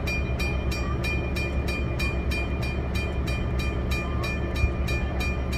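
Railroad grade-crossing signal bell ringing with evenly spaced rapid strikes, about four a second, over a steady low hum: the warning that the crossing signals are active.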